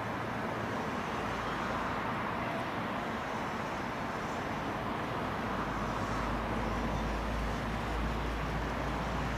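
2TE116 diesel locomotive running in the distance: a steady low engine drone under an even hiss, the drone growing stronger about halfway through.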